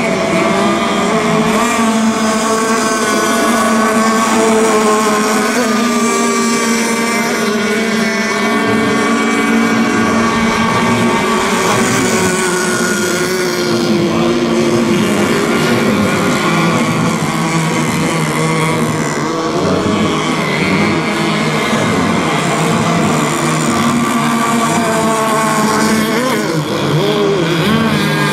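Radio-controlled racing boats' engines running at high revs, several engine tones overlapping and wavering in pitch as the boats race and turn.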